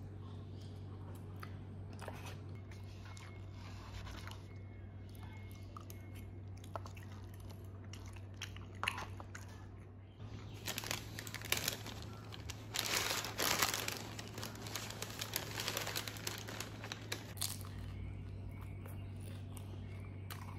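Paper bags crinkling and rustling as a pastry is pulled out of a white paper bag, loud for several seconds past the middle. Before that, faint clicks of a metal fork against a paper cup over a steady low hum.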